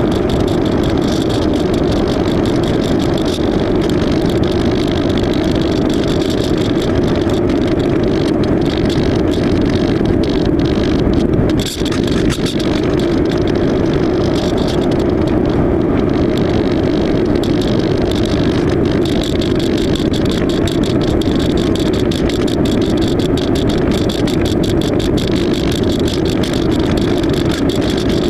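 Electric motor and propeller of an AXN floater RC foam plane running steadily in flight, with wind rush and a fine crackle over the hum. The sound dips briefly about twelve seconds in.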